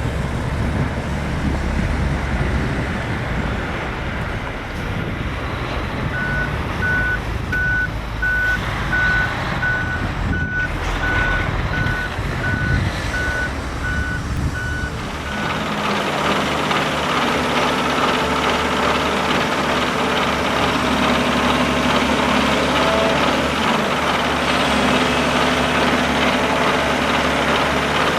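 Heavy construction machine's diesel engine rumbling, with a reversing alarm beeping at a steady pace of about one and a half beeps a second through the middle. About halfway through the sound changes abruptly to another engine running steadily.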